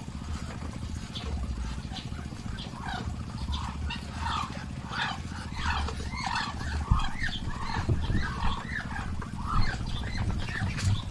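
A flock of Muscovy ducks calling while feeding: many short chirping calls that overlap, thin at first and crowding together from about three seconds in, over a low rumble.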